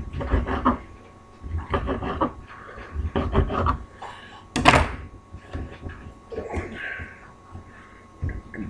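Knife slicing beef hot dogs on a cutting board: clusters of knocks as the blade comes down through the sausage onto the board, the loudest about five seconds in. Softer handling sounds follow as the slices are pushed together.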